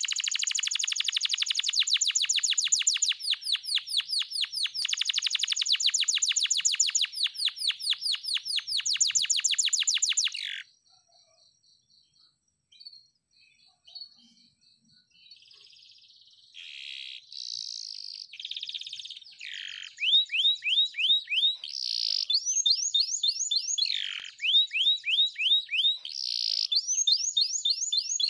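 Domestic canary singing: a long, fast trill of repeated sweeping notes that breaks off about ten seconds in. After a few seconds of scattered soft notes, the song resumes with varied single notes and then another rapid trill.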